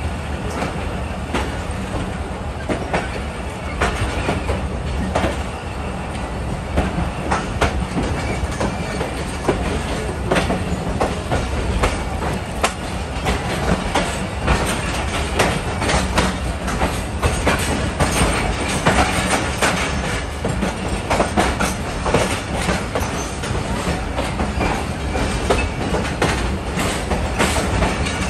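Passenger train coach wheels clicking irregularly over rail joints and pointwork, over a steady low rumble of the running gear, heard from an open coach window as the train rolls slowly through a yard.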